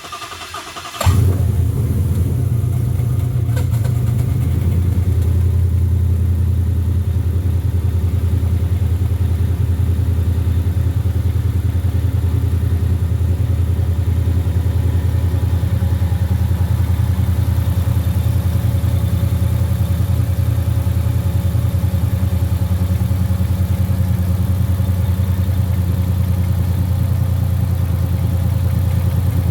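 Supercharged 5.0 L V8 of a 2021 Mustang GT starting about a second in, then idling steadily.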